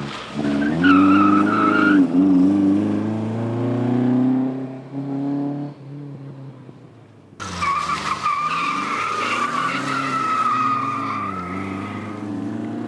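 Classic Alfa Romeo racing car driven hard, its engine revving up and down while the tyres squeal through corners: a short squeal about a second in, and a longer one that starts suddenly past the middle and runs nearly to the end.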